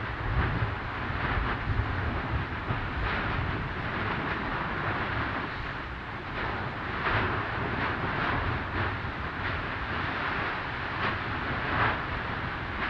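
Fagradalsfjall's 2022 eruption vent with lava fountaining: a continuous low roar, broken by short bursts of spatter about once a second.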